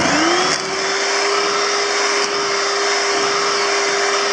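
Electric hand mixer just switched on, its motor whine rising and settling to a steady pitch as the beaters whisk cake batter in a steel bowl.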